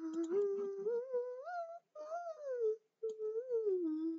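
A girl humming a wordless tune in three phrases: the first climbs step by step, the second falls away, and the third rises and falls again.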